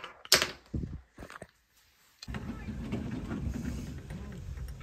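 A few sharp clicks and rustles of small things handled on a tabletop, then a short hush. About two seconds in the sound switches abruptly to a steady low rumble of wind on the phone's microphone outdoors.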